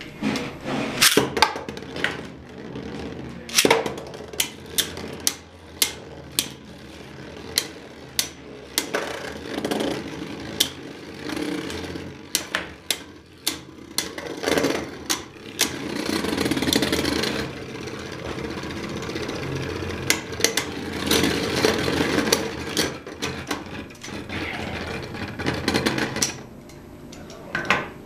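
Beyblade Burst spinning tops clashing in a plastic stadium: quick sharp clicks as they strike each other and the wall, with stretches of whirring and scraping as they spin against the stadium floor.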